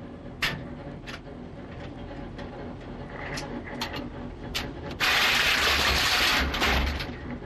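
An artillery shell being handled and loaded into a gun: several sharp metallic clicks and knocks as the round is taken from its rack, then about two seconds of loud scraping, rushing noise from about five seconds in as the round is pushed into the breech.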